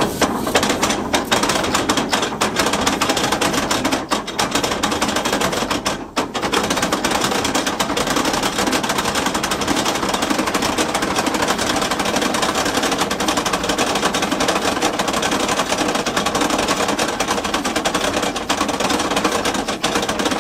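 Type 69-II tank's 38.8-litre V12 diesel engine running with a loud, steady, rapid clatter, its fuel-injection pump timing just moved by one tooth.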